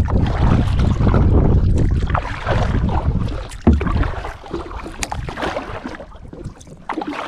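Double-bladed kayak paddle strokes splashing through the water, with wind buffeting the microphone in a heavy low rumble over the first few seconds. A couple of sharp knocks stand out in the middle, and the sound grows quieter toward the end.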